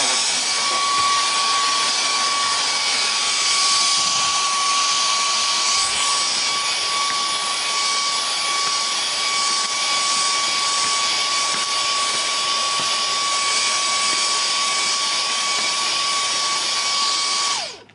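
Cordless stick vacuum cleaner running steadily with a high whine, sucking dust off a knitting machine's needle bed and carriage. It is switched off near the end and cuts out.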